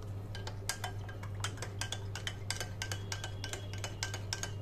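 Metal spoon stirring buttermilk in a cup, clinking against the sides about four or five times a second, over a steady low hum.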